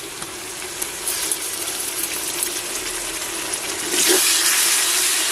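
Onions with ginger-garlic paste sizzling in hot oil in a pressure cooker pot as they are stirred, with faint ticks of the spoon. The sizzle gets louder about four seconds in.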